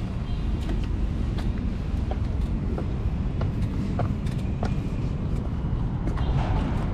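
Bicycle being ridden: a steady low wind and road rumble on the microphone, with scattered light clicks and rattles.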